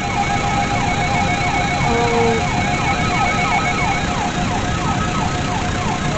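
Emergency vehicle siren in a fast yelp, quick falling sweeps repeating about three or four times a second over a steady hiss.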